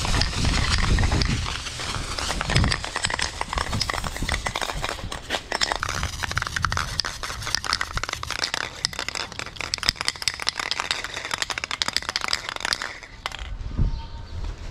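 Nearly empty spray paint can sprayed against a wall: a continuous hiss full of crackling spits and sputters as the last paint and propellant run out. It cuts off near the end.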